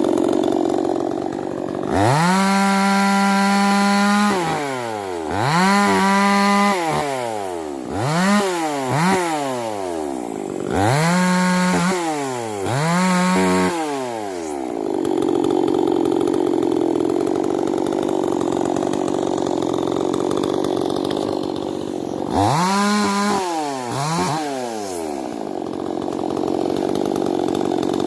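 Stihl two-stroke chainsaw revved to high speed about eight times, each rev rising sharply, holding a steady high pitch and falling back to idle. It idles steadily for several seconds after the middle of the stretch and again near the end.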